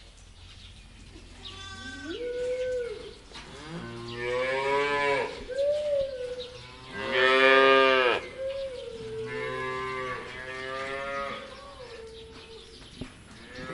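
Cattle mooing: a series of long, pitched moos that follow one another and at times overlap. The loudest comes about halfway through, followed by a long drawn-out call.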